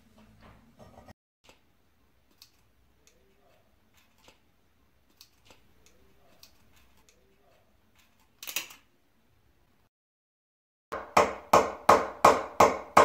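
Light metal scraping and small clicks as a steel pick works at the rusted pin in a sickle head, with one sharper clank about two-thirds through. Near the end comes a quick, even run of loud hammer blows on metal, about three a second.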